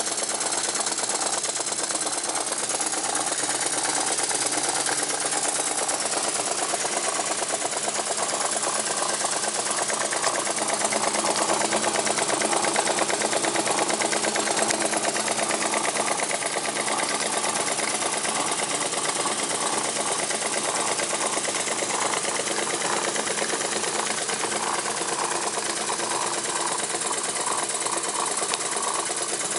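Jensen #50 model steam engine running fast on steam from its riveted boiler, its piston, crank and spinning flywheel making a rapid, even clatter with no let-up.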